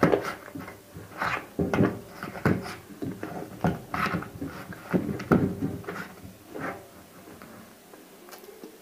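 Dry edible clay cubes coated in nakumatt clay paste being crushed by fingers in a plastic box: a string of short, irregular crunches and crumbles, fading off near the end.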